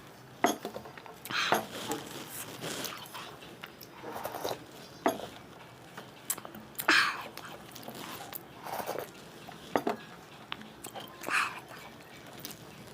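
Close-miked eating of rice and curry: wet chewing and mouth smacking in short, irregular bursts, with occasional small clicks.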